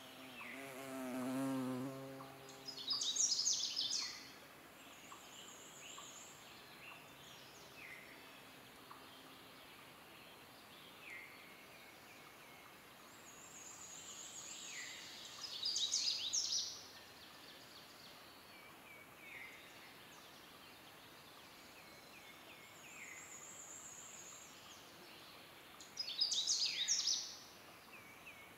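Canada warbler singing its rapid, jumbled warbling song three times, each burst about a second long and some ten to twelve seconds apart. In the first two seconds an insect buzzes past, its hum wavering.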